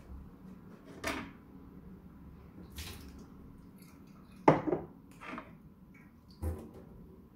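A ceramic mug and the plastic drip tray of a Nescafé Dolce Gusto Genio S coffee machine being handled on a countertop: about five separate clinks and knocks, the loudest about four and a half seconds in.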